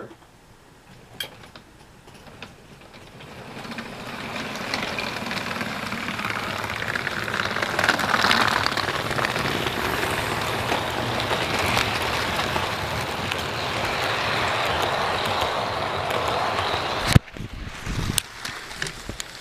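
HO-scale model train, a quadruple-headed string of locomotives led by a model steam engine, running past on sectional track. Its motors and wheels make a steady whir that builds over several seconds and cuts off suddenly with a knock near the end, followed by a few irregular bumps from the camera being handled.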